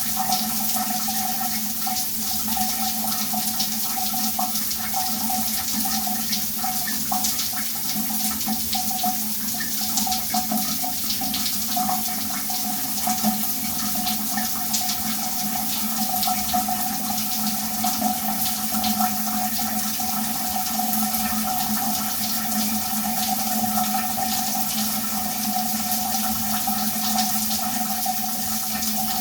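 Shower running: a steady spray of water falling, with many small droplet splashes and a low steady tone underneath, unchanging throughout.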